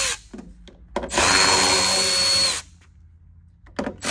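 Electric ratchet backing out 7 mm screws from a headlight housing, running in short steady bursts of whine. One burst ends right at the start, a full run of about a second and a half begins about a second in, and after a short pause and a click another run starts near the end.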